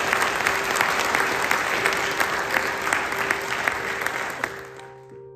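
Audience applauding with dense clapping, which dies away near the end as sustained music tones fade in.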